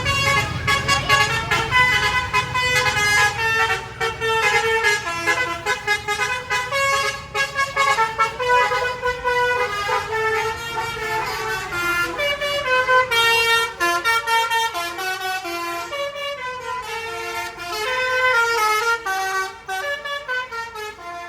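Bus telolet horn, a multi-tone air horn, playing a long, fast melody of changing notes. A bus engine rumbles under it for the first few seconds.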